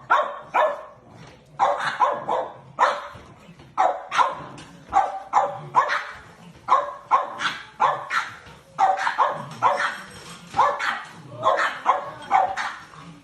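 A dog barking over and over, about two sharp barks a second, without a break.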